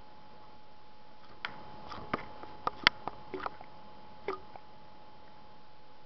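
A small hamster stirring in its cage, making a scattering of small sharp clicks and taps with one louder snap about three seconds in, over a steady faint hum.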